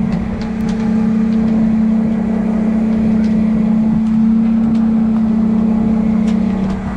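Steady drone of a fishing boat's engine and deck machinery, one even low hum that does not change, over a constant hiss of running water and wind.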